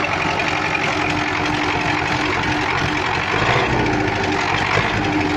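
MTZ-80 tractor's four-cylinder D-240 diesel idling with a rhythmic valve knock, swelling slightly about three seconds in.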